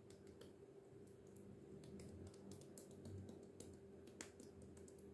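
Near silence: room tone with a faint steady hum and faint scattered clicks, one a little louder about four seconds in.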